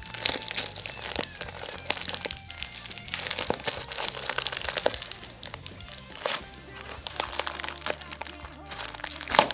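A hard-to-open package being pulled and torn open by hand, with an irregular run of crinkles and crackles and one sharper crack near the end, over background music.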